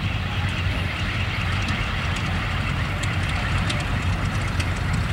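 Big radial piston engine of a P-47 Thunderbolt fighter running as the plane rolls along the runway: a steady deep drone with a rough, crackling edge.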